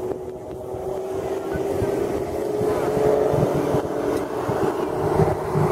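Aerobatic biplane's piston engine and propeller droning overhead through a manoeuvre, getting louder and a touch higher in pitch about halfway through. Irregular low thumps run underneath it.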